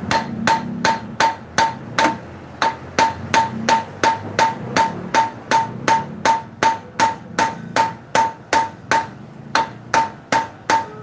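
Steel hammer striking a truck's wheel hub and stud steadily, nearly three blows a second, each blow ringing briefly with a metallic tone: driving a broken wheel stud out of the hub.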